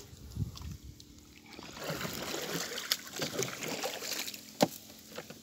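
A paddle splashing and sloshing in the water beside a small bamboo-outrigger canoe, for about three seconds in the middle, with a sharp knock near the end.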